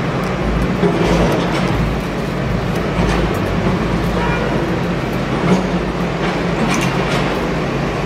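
Steady low rumble with a hiss over it and a few faint clicks.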